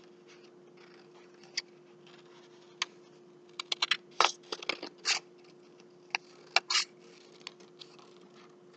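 Scissors cutting paper: scattered snips, with brief rustles as the paper is turned, over a faint steady hum.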